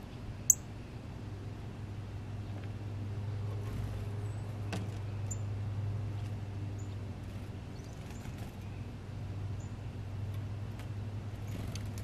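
Northern cardinal giving a single sharp, high chip call about half a second in, with faint short high chirps here and there afterwards, over a steady low hum.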